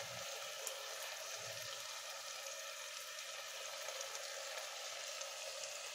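Onions and tomatoes sizzling faintly and steadily in oil and ghee in an open pressure cooker as they sauté.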